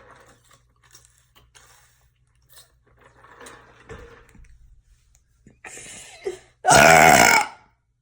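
A person burps deliberately, one loud, pitched burp nearly a second long about seven seconds in, after several quieter breathy noises.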